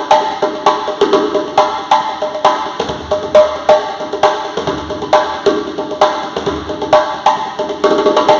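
A hand drum being played in a steady rhythm of sharp strikes, several a second, each with a short pitched ring.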